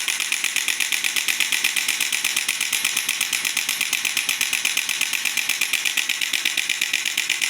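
Handheld electric percussion device running steadily, hammering at about ten beats a second.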